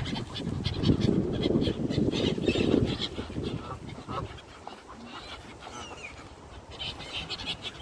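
A flock of waterbirds calling at the water's edge: gulls squawking and ducks quacking, a jumble of short overlapping calls. The calls are loudest in the first three seconds and ease off after about four seconds.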